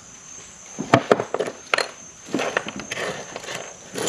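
Small buttons, wooden thread spools and other sewing odds and ends clicking and clattering as a hand rummages through a sewing machine drawer: a sharp click about a second in, then a string of clicks and rattles. A steady high insect buzz runs underneath.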